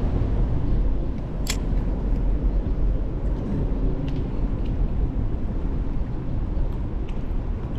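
Steady low outdoor rumble with a few short sharp clicks, the loudest about a second and a half in.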